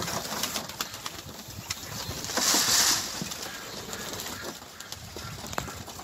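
A flock of domestic pigeons cooing and flapping their wings, with a loud flurry about two and a half seconds in.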